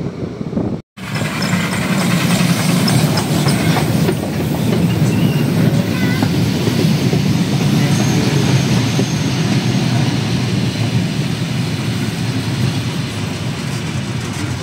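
Train of vintage passenger coaches rolling past close by, their wheels rumbling and clattering steadily over the rails with a few short squeals. The sound starts after a brief break about a second in.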